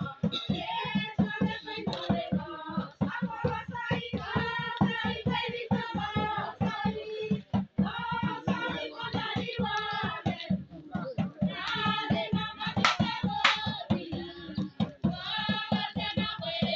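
Singing with music and a steady beat.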